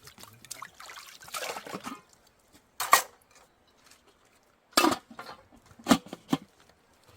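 Liquid pouring and splashing, with several sharp knocks in the second half.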